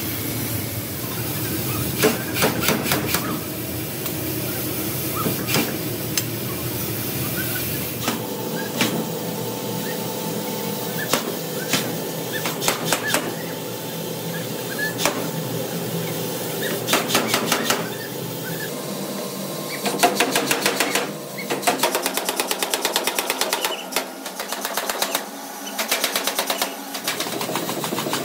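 Power forging hammer striking a red-hot steel crankshaft billet: separate heavy blows at first, then fast runs of repeated strikes in the second half, over the steady hum of the running machinery.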